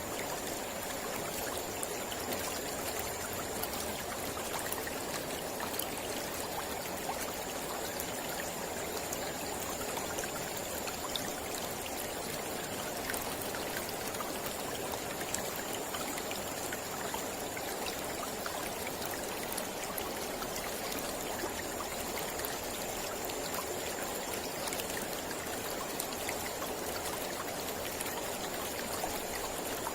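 Mountain river flowing steadily over rocks: an even, continuous rush of water.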